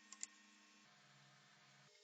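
Near silence, with two quick light clicks just after the start.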